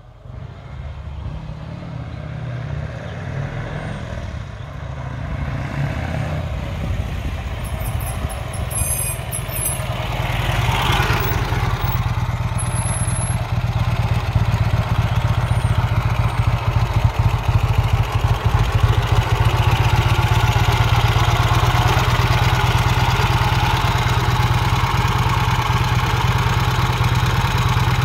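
Vincent Rapide motorcycle's V-twin engine running as the bike rides up, growing louder over the first ten seconds or so, then holding steady and loud.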